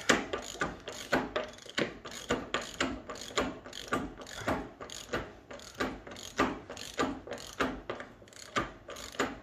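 Hand ratchet wrench clicking in an uneven run of sharp clicks, about two to three a second, as the axle nut on a go-kart's rear wheel hub is worked loose.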